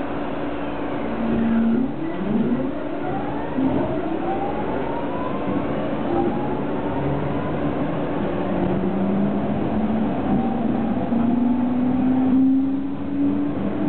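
JR 209 series electric train pulling away from a station and accelerating: the inverter-driven traction motors whine in several tones that rise in pitch together, starting about two seconds in.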